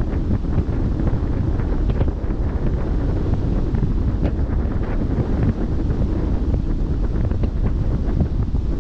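Wind buffeting the microphone at the bow of a ship under way: a steady low rumble with constant small crackles.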